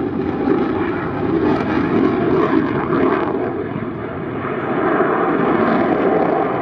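Eurofighter Typhoon FGR4 fighter jet in flight, its twin Eurojet EJ200 turbofans giving a loud, steady jet rumble that eases slightly about four seconds in and swells again.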